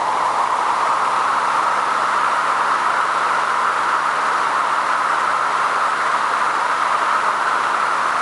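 Amped-up ceiling fans running at high speed: a loud, steady rush of air from the blades over a faint motor hum. The rush rises slightly in pitch in the first second or so as the fans come up to speed, then holds.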